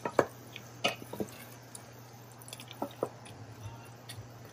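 Wooden spoon stirring a thick lentil, tomato and carrot mixture in a stainless steel pot: wet squelching with several short knocks and scrapes of the spoon against the pot at irregular times.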